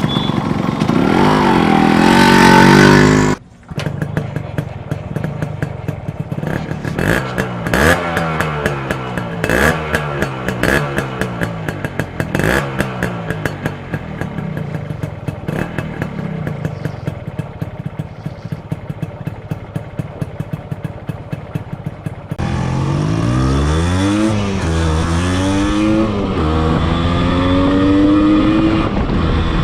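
Yamaha RX100's two-stroke single-cylinder engine revving, its pitch rising and falling again and again. The sound is cut abruptly twice, about three seconds in and again near twenty-two seconds, after which the revving is louder.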